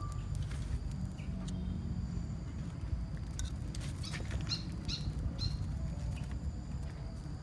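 Light clicks and taps of a china plate and cooked crabs being handled by hand, over a steady low rumble. A few short high chirps come in quick succession about halfway through.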